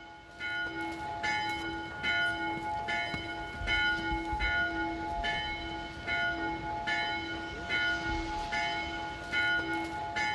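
A bell ringing in steady, evenly spaced strikes, about five every four seconds, each strike ringing on into the next.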